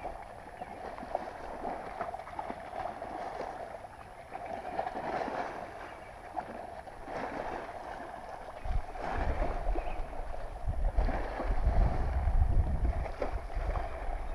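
Kayak paddle strokes swishing through the water about every two seconds, over a steady wash of water against the hull. Wind rumbles on the microphone from about halfway through.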